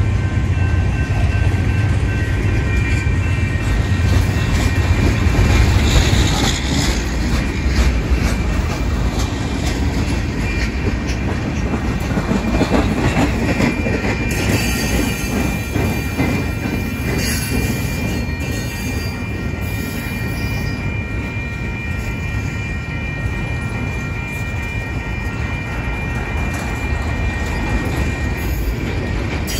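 Mixed freight cars (boxcars, tank cars and autoracks) rolling past close by: a steady low rumble of steel wheels on rail, with a thin, high, steady wheel squeal held over it.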